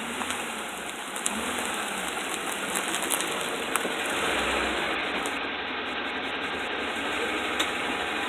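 2008 Ford F-150 4WD running, a steady rushing noise with faint low hum and a few scattered sharp clicks: the unexplained strange noise its owner is asking about.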